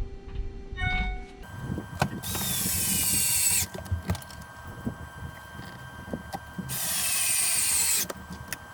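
Cordless screwdriver driving two screws into wood, each run lasting a little over a second with a motor whine that sinks in pitch as the screw goes in, and a few light knocks of handling between them.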